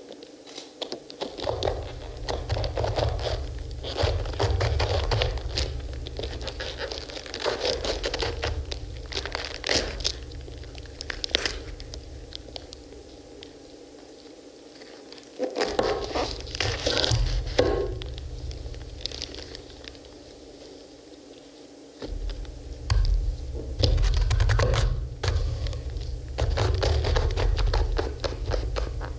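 Knives, one of them serrated, sawing through pomegranate rinds and the fruit being pried and torn open: crackling, scraping and tearing with sharp clicks. Under it a deep low rumble starts and stops in long stretches.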